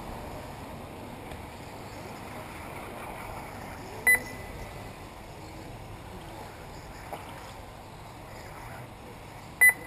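Two short, sharp electronic beeps about five and a half seconds apart, over steady background noise: the race's lap-timing system beeping as buggies cross the timing line.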